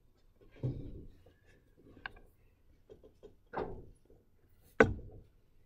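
Several faint knocks and thumps from handling at a desk, the loudest a sharp click-thump nearly five seconds in, with a stylus tapping a pen tablet.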